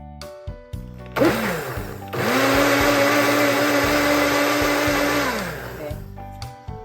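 Electric blender whipping dalgona coffee mixture: a short pulse about a second in that spins up and winds down, then a run of about three seconds, the motor rising to a steady whine and falling away as it stops. Piano background music plays underneath.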